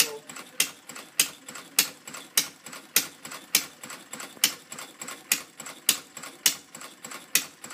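Working replica of Henry Ford's 1893 first engine, a small single-cylinder gasoline engine, running at a slow putter: a sharp pop at each firing about every 0.6 seconds, with lighter clicks between.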